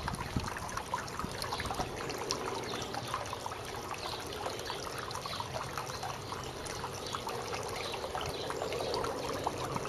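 Water running and trickling steadily, with many small irregular splashes.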